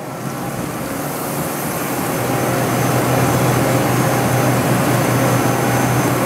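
Shop machinery running: a steady electric hum with a low tone over a noisy whir, growing a little louder over the first few seconds and then holding steady.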